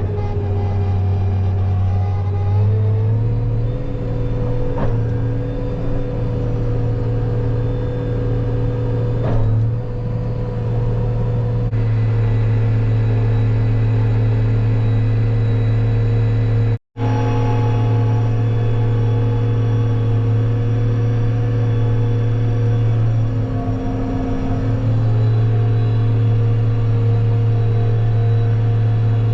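Heavy farm-vehicle engine running steadily, a deep drone whose pitch shifts a few times, cutting out for an instant a little past halfway.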